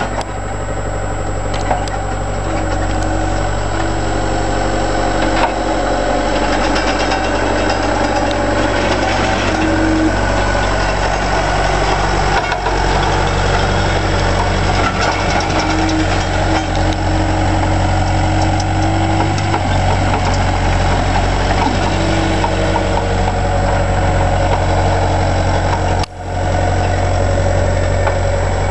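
Bobcat T320 compact track loader's diesel engine running steadily as it drives and pushes snow with its blade, with a mid-pitched whine that comes and goes. The sound drops out for a moment near the end.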